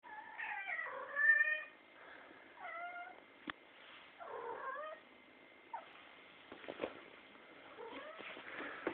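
A domestic cat making a string of odd, wavering meows: a long, loud one at the start, two shorter ones a couple of seconds apart, and a faint one near the end. A single sharp click sounds between the calls.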